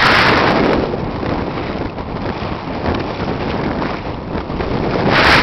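Strong wind buffeting the microphone out at sea, a steady rushing noise. It eases about half a second in and gusts up again near the end.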